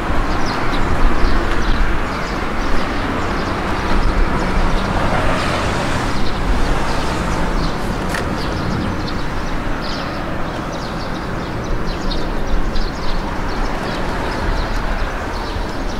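Street ambience with road traffic running steadily, and light footsteps ticking throughout as someone walks.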